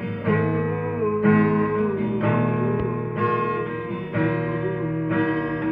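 Acoustic guitar strummed in chords, with a fresh strum about once a second, each left to ring.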